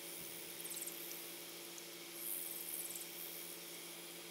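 Faint outdoor ambience at a creek: a steady low hiss with a faint hum, and a high, finely pulsed buzzing trill about two seconds in, like an insect call.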